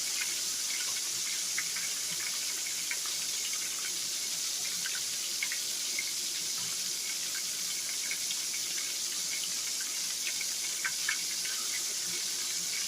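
Flour-battered liver frying in hot oil in a pan: a steady sizzle with scattered small pops and crackles.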